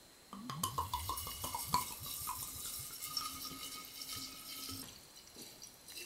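Vodka poured from a bottle into a glass jar of mulberries: a glugging pour at first that settles into a steadier stream, tapering off about five seconds in with a few last drips.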